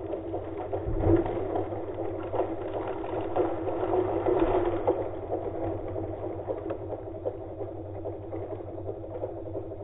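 Stihl 362 chainsaw's two-stroke engine running steadily, a little louder in the first half and easing off after about five seconds.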